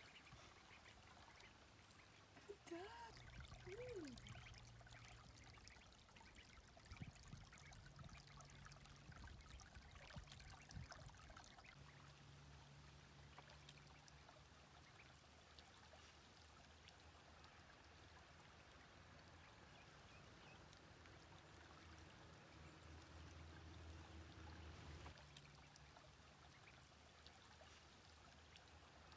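Near silence: the faint trickle of a shallow creek, with a few brief faint rising and falling calls about three to four seconds in.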